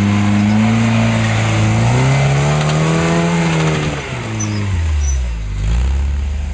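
Off-road trial buggy's engine revving hard as the buggy climbs a steep slope. The pitch rises over the first three seconds, falls away about four seconds in, and settles to a low, steady running.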